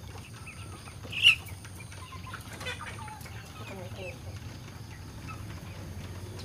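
A chicken sick with a snoring respiratory illness, making short, soft gliding calls while it is dosed by hand. A sudden sharp squawk about a second in is the loudest sound.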